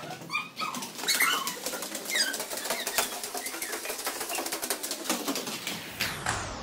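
Inline skate wheels rolling and clattering on a polished marble floor: a quick run of clicks and knocks as the skates strike and roll over the tile joints. A few short high chirps come in the first couple of seconds.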